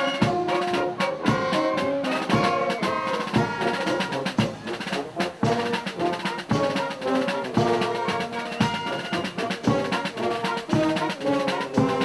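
Music with a steady drum beat under a melody of held notes.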